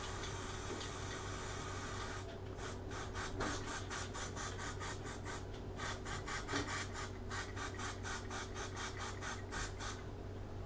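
Aerosol spray adhesive hissing out of the can's nozzle: a steady hiss at first, then from about two seconds in a rapid pulsing spray, about five spurts a second, stopping near the end.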